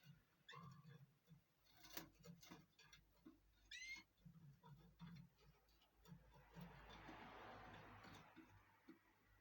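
Canaries in a cage, faint: a few short chirps among light clicks and taps, then a soft spell of splashing flutter from about six and a half seconds in, as a bird bathes.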